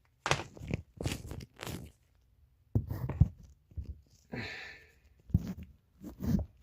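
Hands working a ribbed rubber drive belt onto a washing machine's pulley: a run of irregular rubbing and scraping noises with a few dull knocks.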